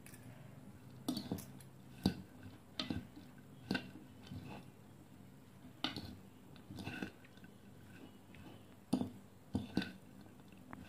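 Two forks tossing a shredded cabbage, onion and tomato salad in a bowl: light crunching and rustling of the raw vegetables, with irregular clicks and scrapes of the forks against the bowl about once a second.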